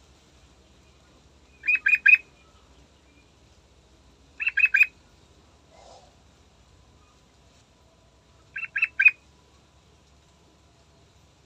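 Yellow-vented bulbul (trucukan) calling: three short bursts of three or four quick chirps each, a few seconds apart.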